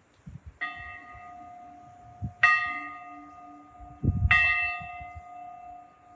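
Church bells hanging in an open stone bell gable, struck three times about two seconds apart. Each stroke rings on into the next.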